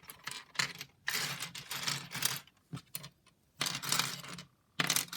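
Loose plastic pieces of a disassembled 5x5x5 Rubik's cube clicking and clattering against each other as they are picked through and sorted, in several bursts of rattling.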